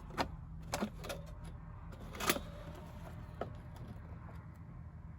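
A few sharp clicks and knocks of accordion parts being handled while the instrument is opened up, the loudest about two seconds in, over a steady low hum.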